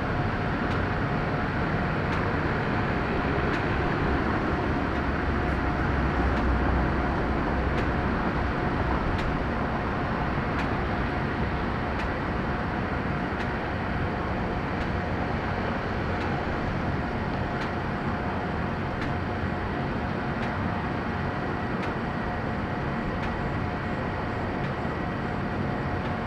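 Jet aircraft engines running steadily: a rumble with a thin steady whine on top, swelling slightly about six seconds in and then easing off a little.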